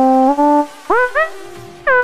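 Steinberg Hypersonic synth lead, the 'Gangsta Whine' soft-lead preset, played one note at a time. A held note gives way about a second in to two short notes that each slide up into pitch, and another sliding note comes near the end.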